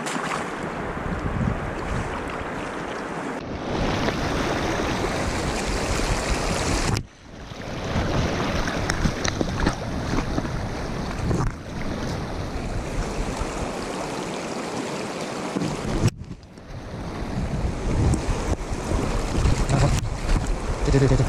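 Shallow river current rushing and splashing close to the microphone: a steady, loud wash of water noise that drops out abruptly twice, about seven and sixteen seconds in.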